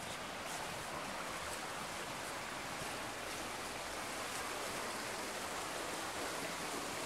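A woodland stream running steadily under a footbridge, a constant rushing of water.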